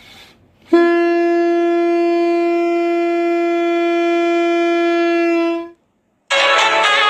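Ship's horn sounding one long, steady blast of about five seconds on a single pitch rich in overtones, then stopping abruptly. Music starts near the end.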